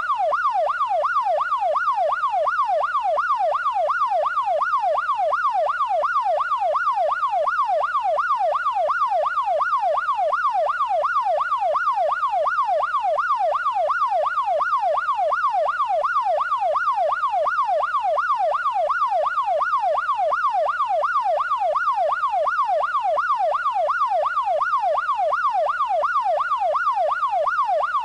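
Police car siren in yelp mode: a fast, steady up-and-down sweep in pitch, about two sweeps a second, repeating without change.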